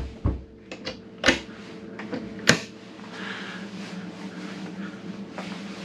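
Boat's engine-room floor hatch being shut and its flush stainless handle folded down: a run of sharp clicks and knocks, the loudest about a second and two and a half seconds in, over a steady low hum.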